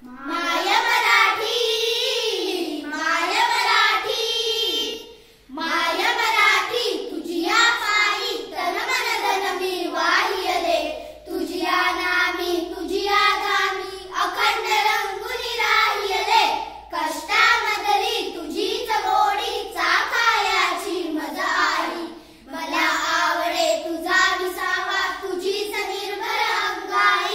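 A group of children singing a Marathi song together in unison, without instruments, in phrases separated by short breaks.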